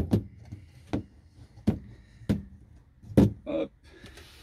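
Six or so sharp knocks and clacks at uneven intervals, from hand work on a homemade laptop support being set to a steeper angle. The last knock, near the end, rings briefly.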